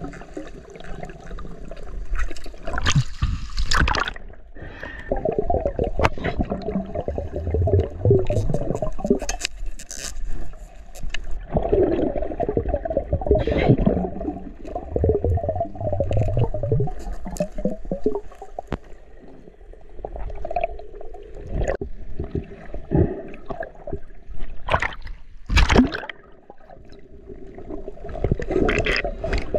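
Water heard underwater: muffled gurgling and rushing that swells and fades, broken by many irregular knocks and clicks.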